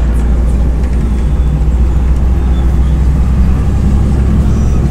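Steady low engine rumble and road noise inside a moving MAZ-105 articulated city bus.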